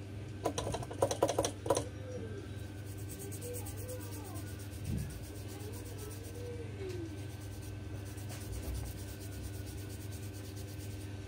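Toothbrush bristles scrubbing the charging-port area of a Samsung tablet circuit board, wet with alcohol, in faint repeated scratchy strokes over a steady low hum. A quick run of sharp clicks about half a second in is the loudest part.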